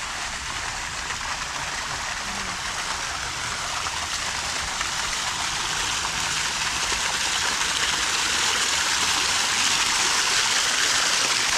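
Waterfall's falling water, a steady rushing that grows gradually louder as it is approached.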